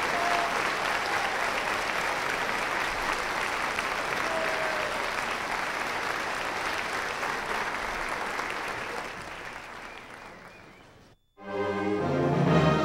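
Concert audience applauding, the clapping fading away about ten seconds in. After a brief dropout to silence, music with sustained notes begins near the end.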